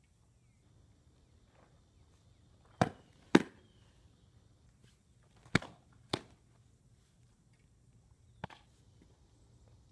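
Softballs smacking into a catcher's leather mitt during pitching practice. There are five sharp smacks: two pairs about half a second apart, then a fainter one near the end.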